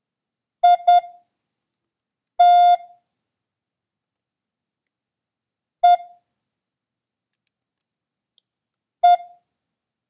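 Morse code practice tone sending single characters a few seconds apart at one steady pitch: two short dits (I), then one longer dah (T), then a single dit (E), then another single dit (E) near the end.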